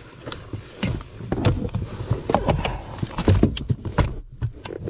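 Irregular clicks, knocks and rubbing from hands-on handling in the cramped space under the dash, as the camera is moved around against the plastic trim.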